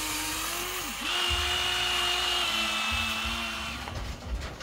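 Electric motor of a Huina remote-control toy excavator, whining at a steady pitch as it drives the arm. It cuts out briefly about a second in, starts straight back up, drops to a lower pitch partway through and stops near the end.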